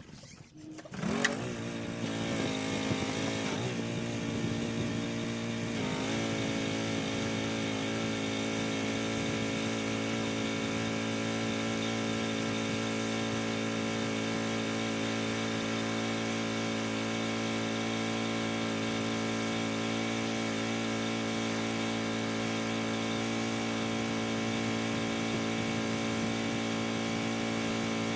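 Pressure washer's small gasoline engine starting about a second in, its pitch rising and wavering for a few seconds before settling, then running at a steady speed.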